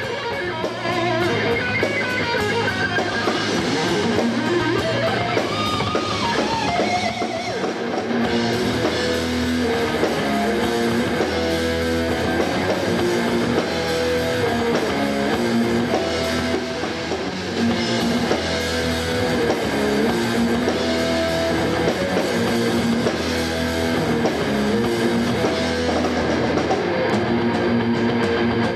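Rock band playing live: electric guitars and bass over a drum kit. In the first few seconds a lead guitar line bends and wavers, then the band settles into a repeating riff.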